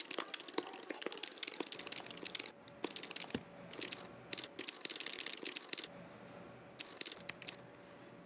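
Computer keyboard typing: quick, irregular keystroke clicks in runs, with short breaks about two and a half and six seconds in, stopping shortly before the end.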